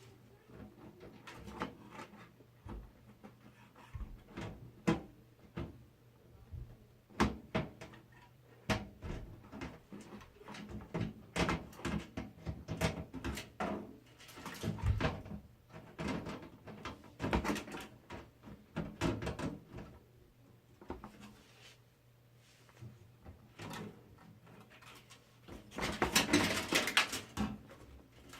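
Irregular clicks, knocks and rattles of computer parts being handled and fitted into a PC case, with a denser burst of rattling near the end, over a faint steady hum.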